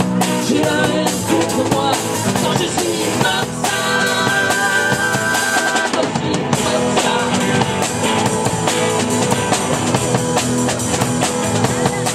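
A live band playing an instrumental stretch of a rock song: a drum kit keeping a steady beat under guitar, with a long held high note from about four to six seconds in.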